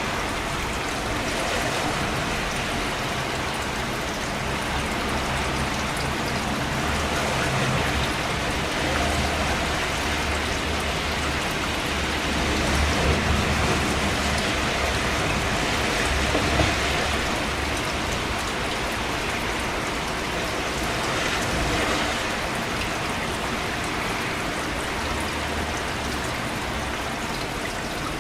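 Steady rain falling and pattering on surfaces, with a low rumble beneath and slight swells in intensity about halfway through.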